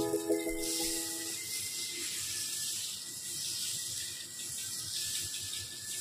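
Dosa batter sizzling on a hot tawa with a steady hiss as a ladle spreads it in circles. A clink with a short ringing tone comes at the very start.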